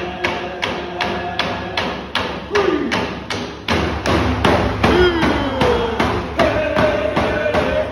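Several Dene hide frame drums beaten in unison with sticks in a steady beat of nearly three strokes a second, with men's voices singing a drum song over them, gliding down and holding long notes.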